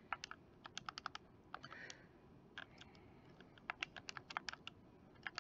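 Faint tapping of keys in quick, irregular runs with short pauses: numbers being keyed into a calculator.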